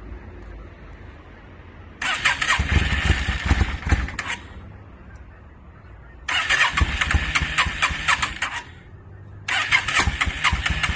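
A 2002 Yamaha V-Star 650's V-twin being cranked on the electric starter in three attempts of about two and a half seconds each, dropping back to a low hum between tries. The bike is hard to start.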